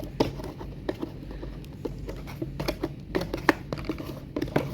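Toy packaging being handled and pulled apart: irregular small clicks, scratches and rustles of plastic and cardboard.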